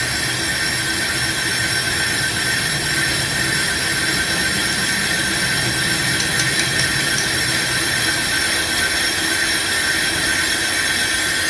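Brake lathe cutting bit skimming a turning, warped brake disc, a steady metallic scraping with a high ringing squeal. The disc is being machined flat because its runout made the caliper follow it and produce a "ngkrut" brake noise.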